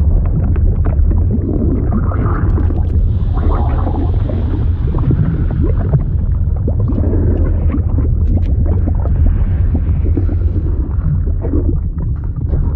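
Liquid sound effect: a continuous deep rumble with gurgling and bubbling, and many small pops and crackles.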